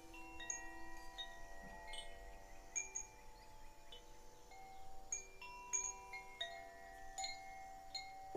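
Wind chimes tinkling: scattered light metallic strikes that ring on and overlap, over a bed of steady lower ringing tones.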